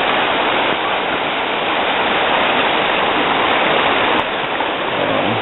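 Swollen, muddy river in flood rushing past, a loud steady wash of water noise.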